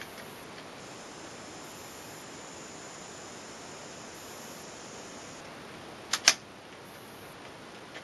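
Two sharp clicks close together about six seconds in, the second much louder, from the FX Revolution semi-automatic PCP air rifle being worked at the bench, over a steady background hiss with a faint high whine in the middle.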